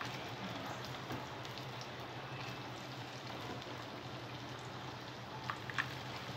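Batter-coated corn kernels sizzling and crackling as they are dropped by hand into hot oil to deep-fry, with two sharp pops near the end.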